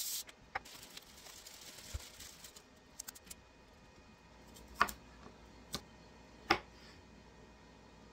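A brief crinkle of a plastic produce bag, then a few light clicks and three sharp knocks in the second half as a chef's knife cuts broccoli florets and strikes the cutting board.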